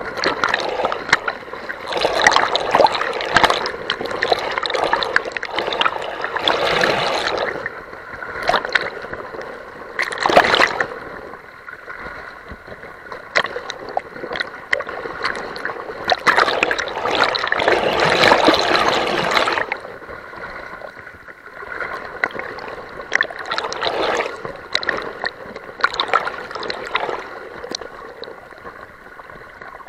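Fast, swollen river water rushing and splashing right against a camera riding at the surface, the lens dipping in and out of the water. Loud surges of splashing come a couple of seconds in, around ten seconds, and again from about sixteen to twenty seconds, with quieter gurgling between.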